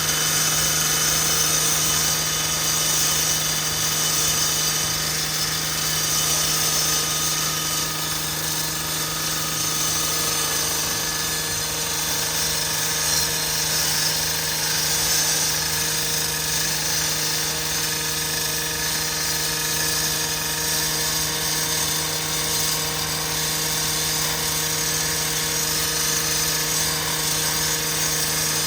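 A machine running steadily: a constant low hum with a strong hiss above it, unchanging throughout.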